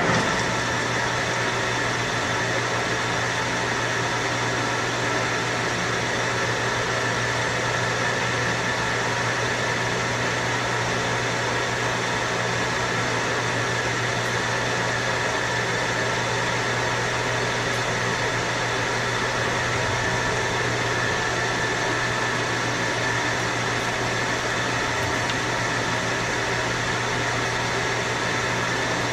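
DoAll Romi 13-5 engine lathe switched on by its spindle lever and running steadily with an empty chuck and no cut. The headstock drive gives a steady mechanical hum with several fixed tones, starting suddenly with a short clunk at the beginning.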